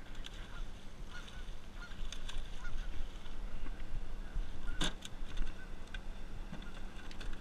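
Geese honking in short calls over a steady low hum, with one sharp knock about five seconds in.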